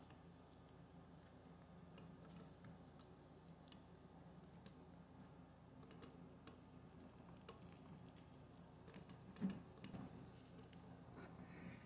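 Faint, scattered small clicks and taps of fingers working at a Nikon D4's front rubber grip as it is peeled off the camera body, with one louder soft knock about nine and a half seconds in.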